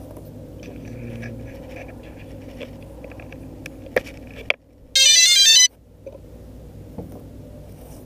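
A short, loud electronic chime of quick stepped tones about five seconds in, with a moment of dead quiet just before and after it. Before it, faint high beeps and a couple of sharp clicks sit over a low steady background.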